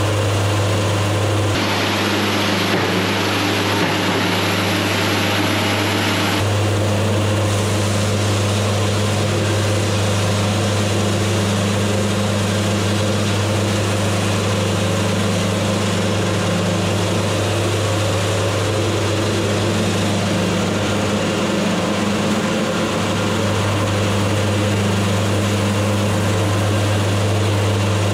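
Wood-Mizer band sawmill running steadily under load as its band blade cuts a board along a squared log, with a brighter hiss for the first few seconds.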